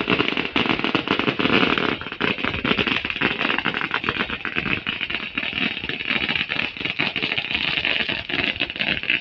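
Firecrackers going off on the ground in a rapid, unbroken crackle of pops and bangs that lasts for several seconds, with ground fireworks spraying sparks.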